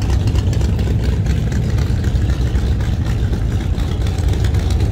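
Car engine idling with a steady deep note.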